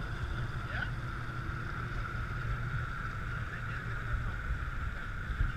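Twin Mercury outboard motors running steadily at trolling speed, with water washing past the hull.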